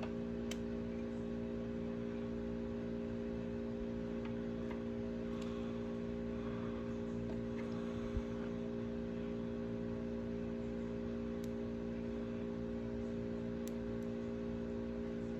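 Steady electrical hum with a few faint ticks and one soft knock about eight seconds in.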